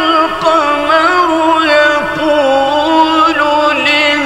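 A man's voice in melodic, mujawwad-style Quran recitation, holding long notes ornamented with slow wavering turns, into a microphone.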